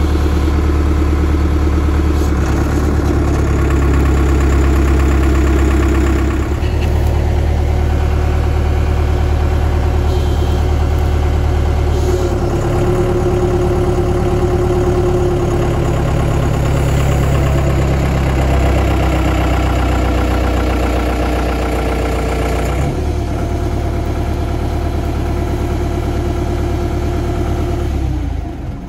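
Demag V72 mobile crane's Deutz F4L912 air-cooled four-cylinder diesel running, its engine speed stepping up and down several times, then dropping away near the end.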